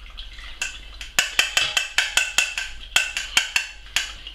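Colander being tapped repeatedly against the rim of a metal saucepan to shake the stew liquor through: a quick run of sharp, ringing metallic taps, about five a second, starting about a second in.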